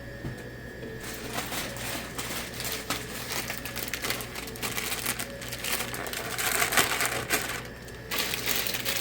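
Foil chip bags crinkling and crackling with irregular clicks and rustles as they are handled and loaded into a vending machine tray.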